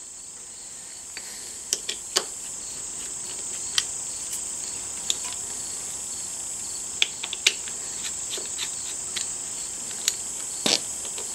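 Phillips screwdriver backing out the small screws of a motorcycle's rear brake fluid reservoir cap: scattered light clicks and ticks of metal on metal and plastic, with a quick run of several clicks about seven seconds in, over a steady high-pitched hiss.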